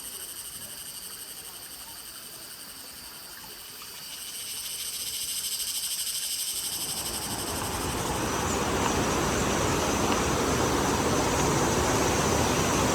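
Tropical forest chorus of frogs and insects with high, fast-pulsing trills. About halfway through, a steady rushing sound of running water swells up and drowns it out.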